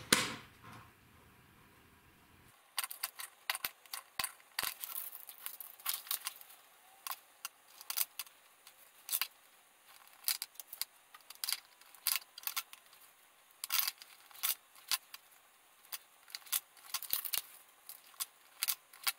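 Wire stripping and crimping at a workbench: the stripping and crimping pliers and the small plastic crimp connectors give sharp, irregular clicks and light clatter, starting about two and a half seconds in and running on in quick clusters.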